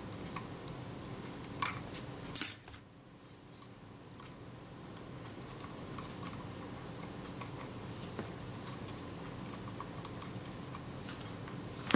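Small metallic clicks and ticks of a small screwdriver and fingers working at the rewind knob screws of a Kodak Retina II camera. Two sharper clicks come about two seconds in, the second the loudest, then scattered light ticks over a steady background hiss.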